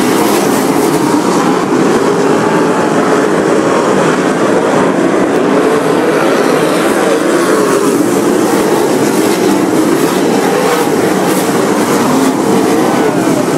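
A pack of USAC sprint cars' V8 engines at racing speed on a dirt oval: a loud, continuous drone with many overlapping pitches rising and falling as the cars pass.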